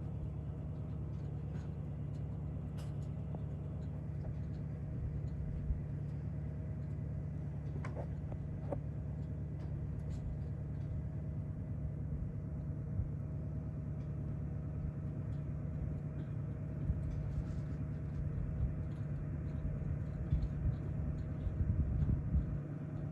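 Steady low rumble with a faint constant hum above it, and a few faint scattered clicks.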